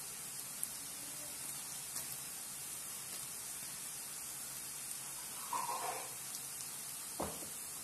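Masala-batter-coated peanuts deep-frying in hot oil in a wok: a steady sizzling hiss of bubbling oil. About five and a half seconds in comes a brief louder burst of sizzle as more coated peanuts go in, and near the end a single short knock.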